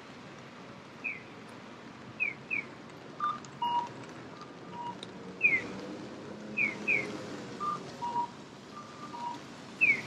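Electronic bird-call signal of a Japanese accessible pedestrian crossing. A single high falling chirp is answered by a pair of chirps in a repeating cycle, interleaved with short two-note cuckoo-like beeps, stepping down in pitch.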